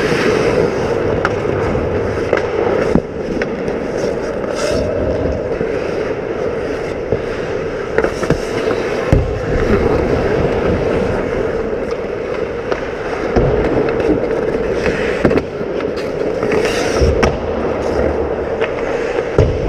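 Ice hockey heard from inside the goal net: skate blades and goalie pads scraping the ice, with sharp clacks of sticks and puck every few seconds over a steady hum.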